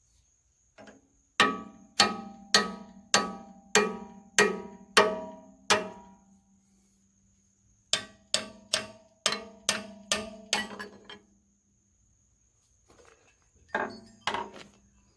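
Hammer blows on steel at the flywheel hub of an International Type M 6 hp engine, each strike ringing on briefly, struck to drive out a stuck gib key and loosen the flywheel. There are eight blows about two a second, a short pause, eight more slightly quicker, and two more near the end.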